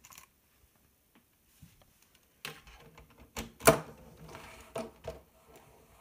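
Plastic Lego Technic parts clicking and clacking as a hand handles a small tracked model with a scraper blade and pushes it over a tabletop. Almost quiet at first, then a run of clicks and knocks from about two and a half seconds in, the loudest clack a little past the middle.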